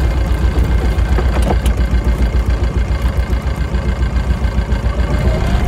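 A sailboat's auxiliary engine idling with a low, pulsing rumble while manoeuvring to dock, with a faint whine rising in pitch near the end.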